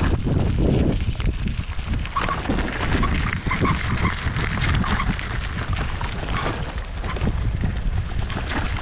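Loaded touring bicycle rolling over a gravel track: a steady low rumble of wind on the bike-mounted microphone, with tyres crunching on the stones and bags and frame clattering in quick irregular knocks.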